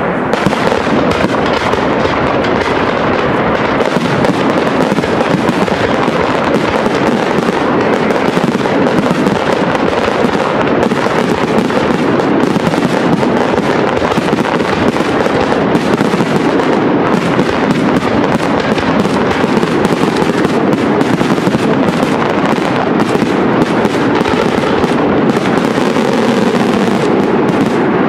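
Professional aerial fireworks display firing a dense, continuous barrage: many rapid bangs and crackling bursts overlapping without a break.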